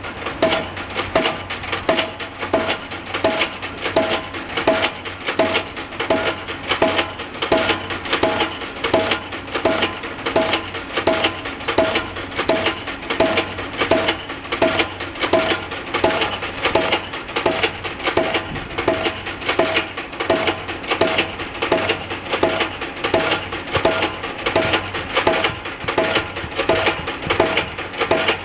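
Pile-driving hammer striking a pile over and over in a steady rhythm, a little faster than one blow a second, each blow with a short metallic ring, over a steady low machinery hum.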